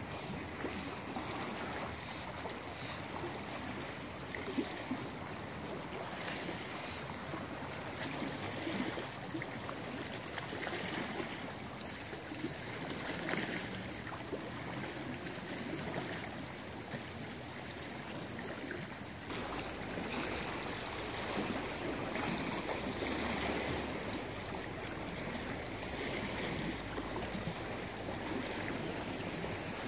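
Small lake waves lapping and splashing against the shore, a steady wash of water with irregular little splashes. A low rumble joins about two-thirds of the way in.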